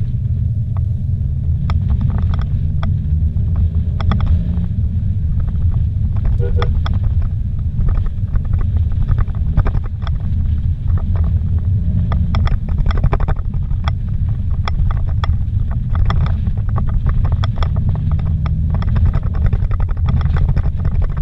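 A vehicle driving fast on a dirt road, heard from inside the cabin: a steady low rumble of engine and tyres, with frequent sharp knocks and rattles from the rough surface.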